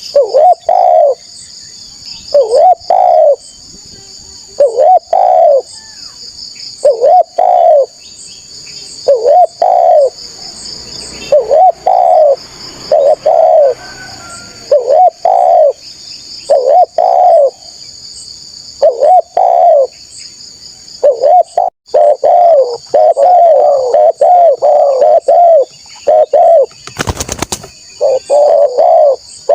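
Spotted dove cooing in short phrases of two or three notes repeated about every two seconds, turning to faster, near-continuous cooing in the last third. A steady high-pitched buzz runs underneath, and a brief noise burst comes about 27 seconds in.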